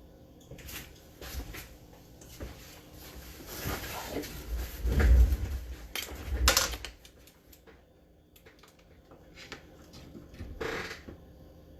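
Handling noises: scattered clicks and rustling as objects are moved about, with a louder stretch of bumping and clattering about five to seven seconds in.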